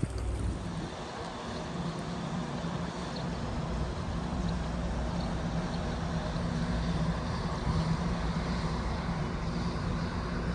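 Steady low drone of a large ferry's engines, two low hum tones under a wide rush of wind and water noise.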